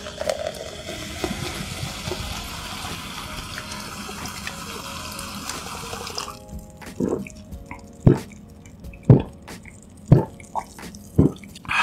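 Canned cola poured into a glass mug, fizzing and crackling as it foams for about six seconds. It is then drunk in five loud gulps about a second apart.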